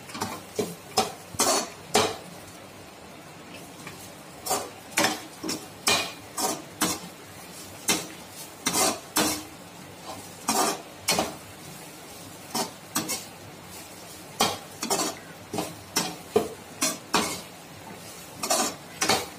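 A slotted metal spatula scraping and clacking against a non-stick kadai in quick, irregular strokes as it stirs grated coconut and dried red chillies being lightly fried, with a faint sizzle between strokes.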